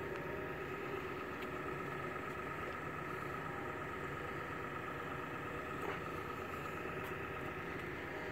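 A steady mechanical hum with several held tones over a low rumble, unchanging throughout.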